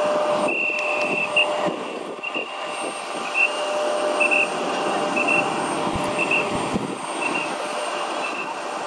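A motorized passenger stair truck's warning beeper sounds as the truck drives up to a parked airliner: a short high beep about once a second, the first one longer. Underneath is a steady rumble of airport apron noise.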